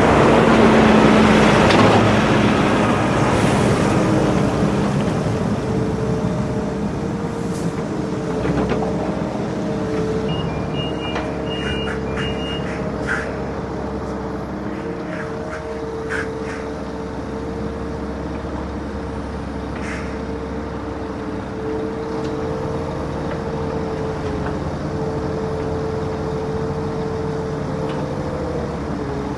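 The heavy diesel engines of a wheeled excavator and a tipper truck run steadily as the excavator loads sand into the trailer. There is a burst of louder noise at the start, a short run of high beeps about ten seconds in, and a few scattered knocks.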